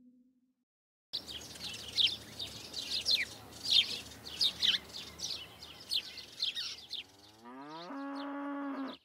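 After about a second of silence, birds chirping in many short, quick downward notes; about seven seconds in, a cow moos, the call rising in pitch and then holding steady for about a second.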